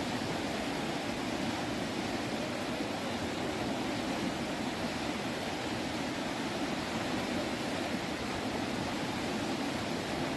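Steady rushing of fast-flowing water at a surfing wave, an even noise with no breaks.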